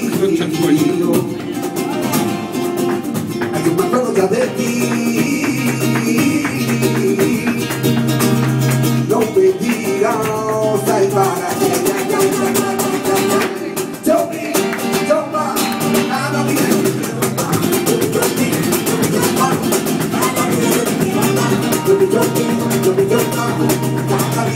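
Live flamenco music: an acoustic guitar strummed in a fast, driving rhythm, with a voice singing at times.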